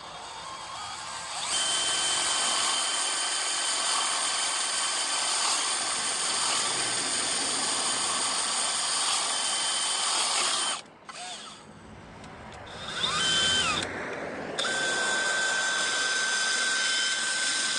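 Power drill boring into wood with a homemade wood bit ground from a bolt, the bit's test cut. The motor runs steadily for about nine seconds, stops, is briefly run up again, then runs steadily once more and stops near the end.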